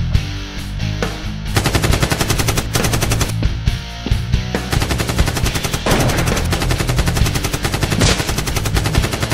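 Rapid automatic gunfire sound effects in several long bursts, dubbed over toy blaster shooting, with rock background music underneath.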